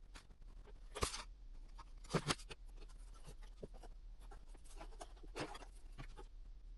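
Scratching and rustling of cardboard being worked by hand, with small clicks throughout and a few sharper knocks, the loudest about a second in and just after two seconds.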